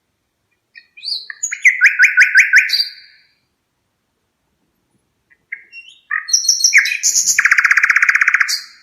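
Red-rumped parrot singing: two phrases of rapid, chirping warbled notes, the second ending in a long fast trill.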